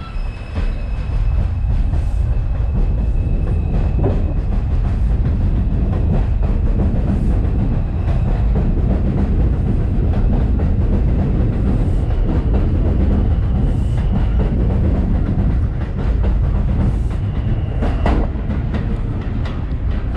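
R142/R142A New York City subway train pulling out and running past, with a heavy continuous rumble, wheels clacking over rail joints, and a thin electric motor whine coming and going at a few points.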